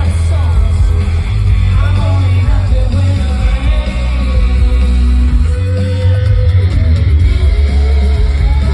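Live rock band performing with a singer over heavy bass and loud guitars.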